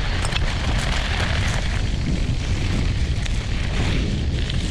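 Steady rumble of air-filled off-road inline skate wheels rolling over a dirt trail, with wind buffeting the microphone.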